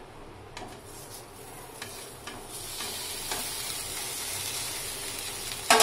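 Hot oil in a non-stick frying pan sizzling as steamed rice-flour dumplings go into the spice tempering. There are a few soft knocks as they land, the sizzle builds from about two and a half seconds in, and a sharp knock comes near the end.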